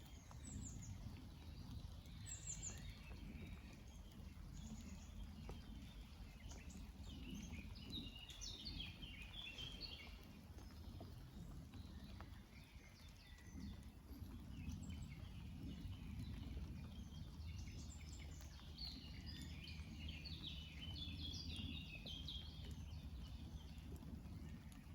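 Songbirds singing in quick bursts of high chirps and trills, loudest in two spells in the middle and latter part, over a steady low rumble.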